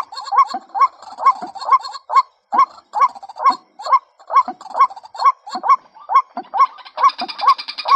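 Female white-breasted waterhen calling, used as a trapping lure: a fast, even run of short hooked calls, a little over two a second. About seven seconds in, music starts alongside the calls.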